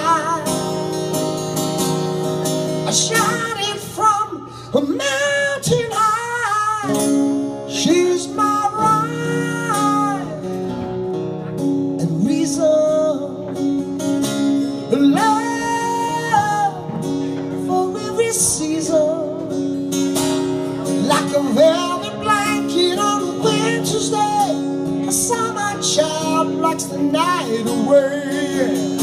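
A man singing and playing an acoustic guitar live, with long held and gliding vocal notes over the guitar.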